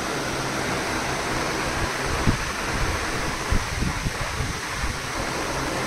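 Steady rushing background noise, with a few soft knocks about two and three and a half seconds in.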